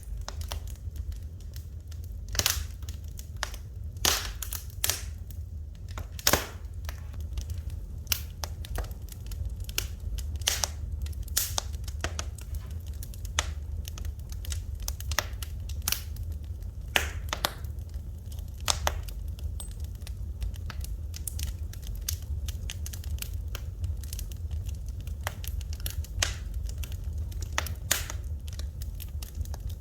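Wood fire in a fireplace crackling, with irregular sharp pops and snaps, some louder than others, over a steady low rumble.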